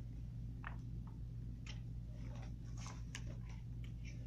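Faint scattered rustles and small ticks of a paperback picture book being handled and its page touched, over a steady low hum.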